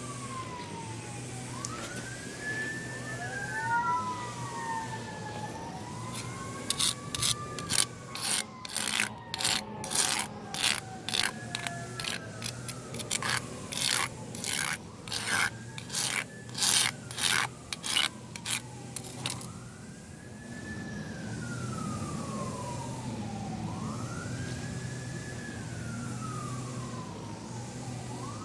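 Emergency vehicle sirens wailing, slowly rising and falling, with two or more overlapping at times. Through the middle stretch comes a run of rasping scrape strokes, about one or two a second, that stops well before the end. A steady low hum runs underneath.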